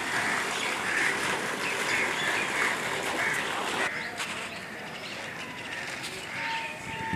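Birds calling repeatedly over a steady rush of falling water; about four seconds in the rushing stops, leaving short bird chirps.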